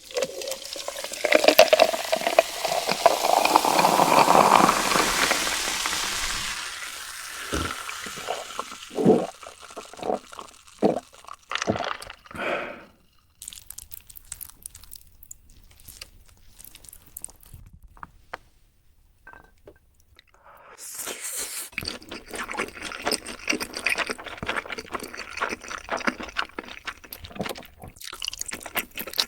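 Liquid poured into a glass, the pitch rising as it fills, followed by a few sharp taps and clicks. Later a stretch of dense crackling.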